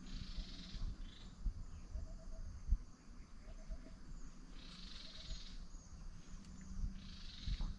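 Forest insects buzzing in swells of about a second each, three times, with a faint animal call of three quick low notes repeated four times. Scattered low thumps and one sharper knock under the calls.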